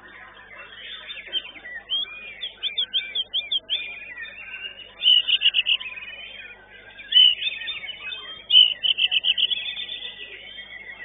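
White-rumped shama (murai batu) singing in contest: chirps and fast runs of sharp repeated notes, about eight a second, loudest about five seconds in and again from about seven to nine seconds, over other birdsong.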